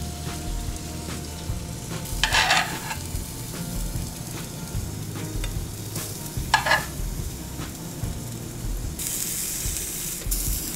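Food sizzling in a frying pan, with two short scrapes of a utensil about two and a half and six and a half seconds in, and a brighter hiss near the end.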